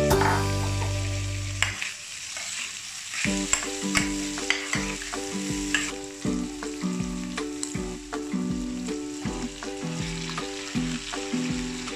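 Diced pork sizzling as it fries with onion and garlic in a stainless steel pan and is stirred, over background music with a steady beat.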